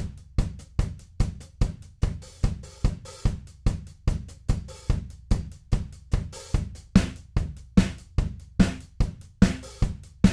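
Sampled acoustic drum kit from the Stockholm SDX library for Superior Drummer 3, through its Dry and Compressed preset, playing a steady groove at 146 BPM. Kick, snare, hi-hat and cymbals come in abruptly after a moment of silence, with a hit on about every beat.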